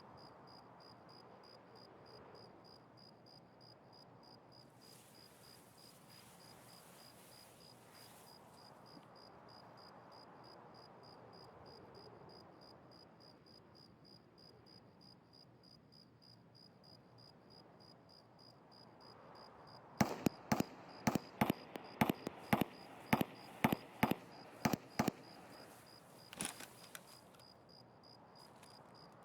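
A rapid string of about a dozen pistol shots from a Makarov, two to three a second, then a couple of fainter knocks. Crickets chirp steadily throughout.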